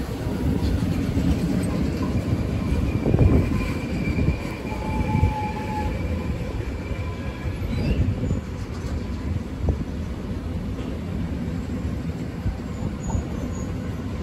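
Intermodal freight train of pocket wagons carrying lorry trailers rolling past: a steady rumble of wheels on rail with irregular knocks. Thin high squealing tones from the wheels come in a few seconds in and fade again.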